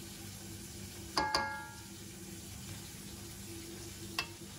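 Slotted metal spatula knocking against the metal wok twice about a second in, the wok ringing briefly with a clear tone, and one lighter tap near the end, over a steady faint hiss from the hot pan.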